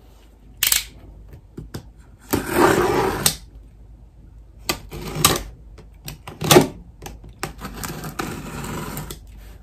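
Box cutter slicing through packing tape on a cardboard box: a sharp click near the start, then a series of scraping cuts. The longest cuts come about two seconds in and again near the end.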